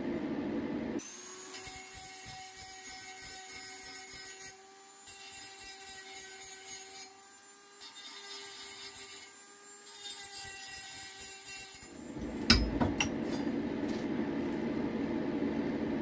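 Dremel rotary tool with a carbide burr running at a steady high-pitched whine, the burr grinding over stainless steel rod in passes with short breaks. Near the end the tool stops, followed by a sharp knock and a lower, steady noise.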